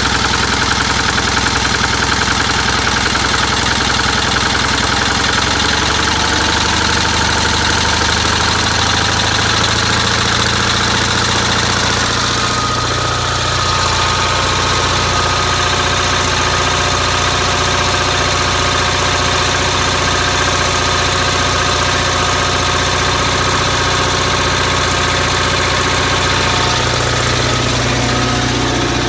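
Onan CCKA two-cylinder air-cooled engine of a Gravely 450 tractor running steadily just after a cold start, its note shifting about twelve seconds in.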